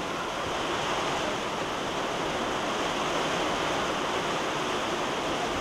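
Storm wind and rain making a steady, even rushing noise.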